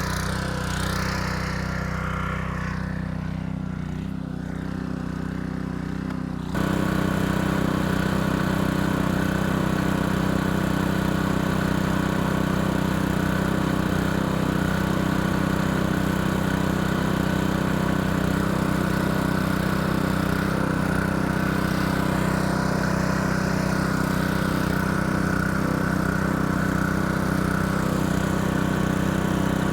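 Honda GX200 single-cylinder four-stroke engine running steadily on a 3-inch water pump. About six seconds in the sound suddenly gets louder and fuller, then holds steady.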